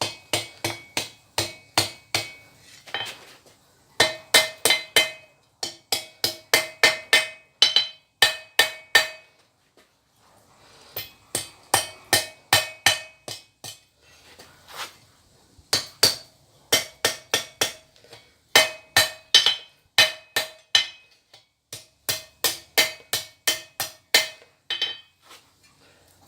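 Hand hammer striking hot steel on an anvil in quick runs of blows, about four a second, with short pauses between runs. The anvil rings after each strike.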